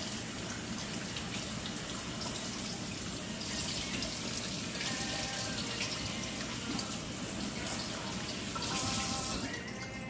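Kitchen faucet running water steadily into a sink, cutting off near the end.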